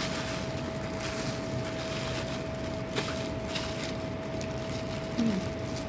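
Steady background hum and hiss with one constant tone running through it, broken by a single small click about three seconds in and a short falling voice-like murmur near the end.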